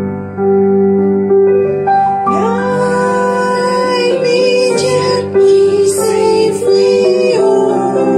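A woman sings a slow hymn into a microphone over piano accompaniment. The voice comes in about two seconds in, with long held notes.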